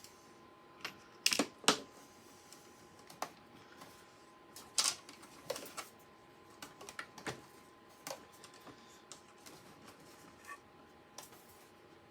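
Irregular clicks and light knocks of small plastic and metal parts of an Xbox One X console being handled and worked loose during disassembly, the loudest a quick cluster about a second and a half in. A faint steady hum runs underneath.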